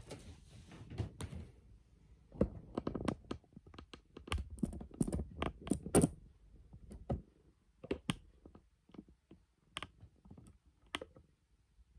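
Irregular clicks, knocks and rustling from a handheld phone camera being handled and moved, with a hiss at the start and the densest knocking in the middle.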